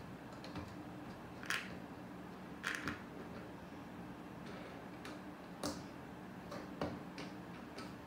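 Plastic Lego pieces clicking and tapping as they are handled and pressed together: a few separate sharp clicks scattered through, over a steady low hum.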